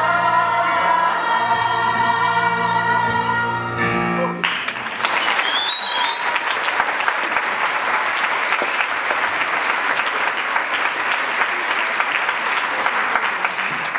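Cast and chorus singing a held final chord with an orchestra, cut off sharply about four seconds in; then a theatre audience applauding steadily, with a brief whistle near the start of the applause.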